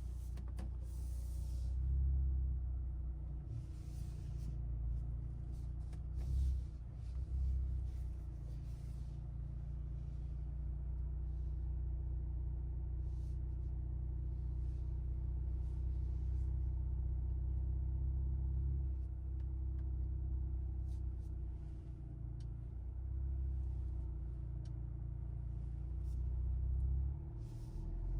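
2023 Mercedes-AMG C43's turbocharged four-cylinder engine and road noise making a steady low drone while cruising at light throttle, with a few brief faint hisses in the first half.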